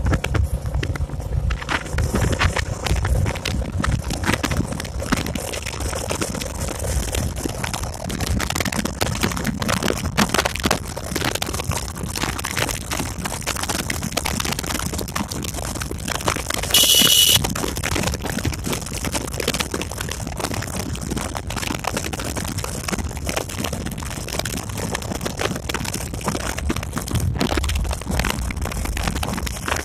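Motorcycle riding along a road, its engine running steadily under wind noise on the microphone. A brief shrill beep sounds a little past halfway.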